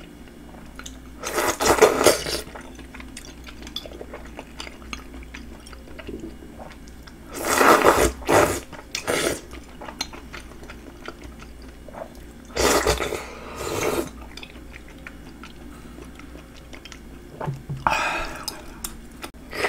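Loud slurps of thick Chinese glass noodles in spicy sauce, in about five bursts a few seconds apart, with quiet wet chewing between them.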